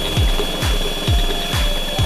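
Handheld power tool running with a steady high whine, pressed against plaster-filled mold boxes to vibrate air bubbles out of the wet plaster. Background music with a steady beat, about two kicks a second, plays over it.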